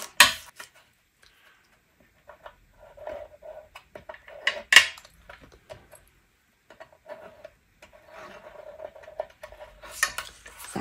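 Card and small round objects handled on a hard craft mat: a sharp tap at the start and another about halfway through, with soft sliding and scraping of card in between.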